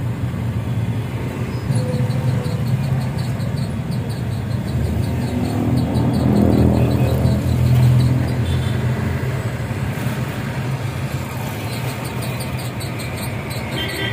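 A motor vehicle engine running steadily, growing louder and rising a little in pitch about five to eight seconds in, then easing back.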